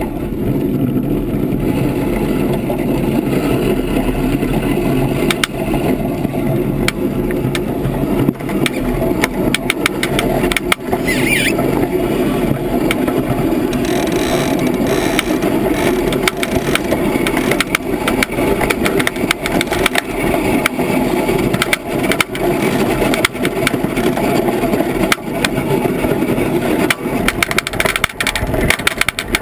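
Iceboat under sail on lake ice: a loud, steady rumble of the runners on the ice, with frequent clicks and rattles from the boat's rigging and frame. A brief high squeal about eleven seconds in.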